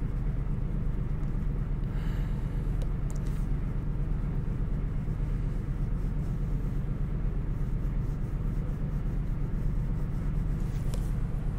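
A steady low background hum, with faint, brief scratching of a ballpoint pen shading on chipboard now and then.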